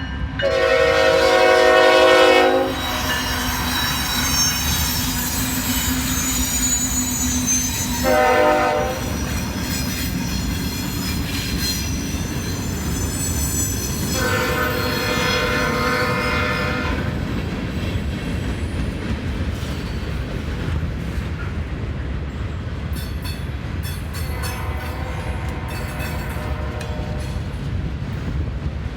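Norfolk Southern freight train passing as it slows, its air horn sounding four times: a long blast at the start (the loudest), a short one about eight seconds in, then two more long blasts. Underneath runs the steady rumble of the passing cars, with high-pitched wheel squeal.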